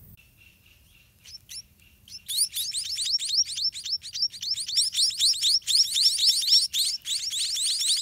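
White-rumped munia nestlings begging as a parent feeds them: a faint thin peeping at first, then from about two seconds in a loud, rapid run of high chirps, about five a second.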